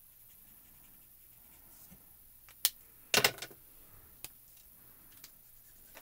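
Plastic Copic alcohol markers being handled: a sharp click about two and a half seconds in, then a short cluster of clacks just after, and a few light ticks later.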